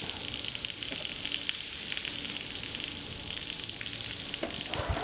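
Steady rush and hiss of water from a drain jetter's high-pressure water, with a faint low hum underneath.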